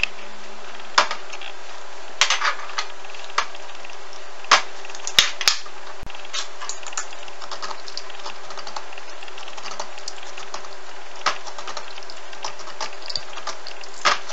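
Paring knife peeling the hard skin of a green papaya on a plastic cutting board: irregular sharp clicks and scrapes of the blade, over a steady background hiss and faint hum.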